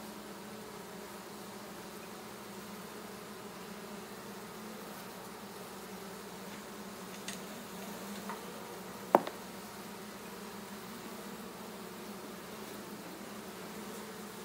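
A swarm of honey bees buzzing, a steady low hum. A single sharp tap a little past halfway through, with a couple of fainter clicks just before it.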